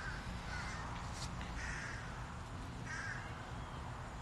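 Peafowl calling: several short, harsh calls a second or so apart, over a steady low rumble.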